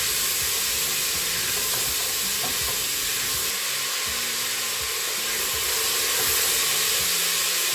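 Chopped peppers sizzling in hot coconut oil in the inner pot of a Crockpot Express on its sear/brown setting: a steady frying hiss, with a spatula stirring and scraping through them.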